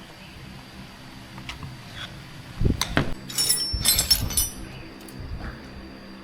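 Hard objects clinking and knocking together: a few scattered light clicks, then a quick cluster of knocks and ringing clinks about midway.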